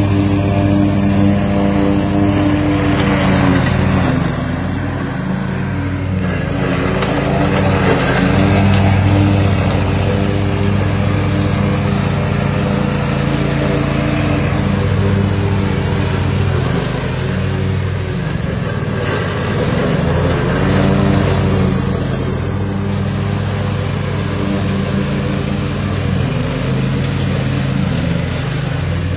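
Small petrol engine of a ride-on weed mower running steadily under load as it cuts fern undergrowth, its pitch sagging briefly a few times.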